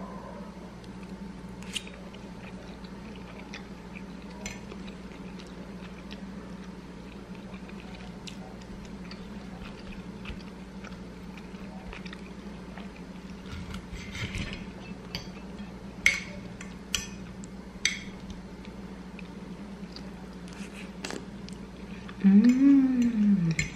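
Steel knife and fork clinking and scraping against a glass plate as an omelette is cut, in scattered clicks over a steady low hum. Near the end, a short hummed 'mmm' that rises then falls in pitch, the loudest sound.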